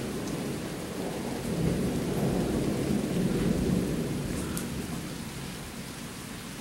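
Thunder rolling after a big lightning flash, a low rumble that swells a couple of seconds in and then fades away, over steady rain.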